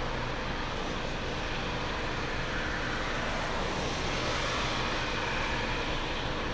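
Steady jet engine noise from an airliner, swelling slightly about four seconds in.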